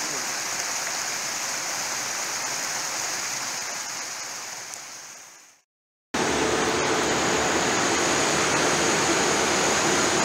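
Water rushing steadily down a small rocky cascade, fading out about five seconds in. After a brief silence, a louder steady rushing noise cuts in abruptly.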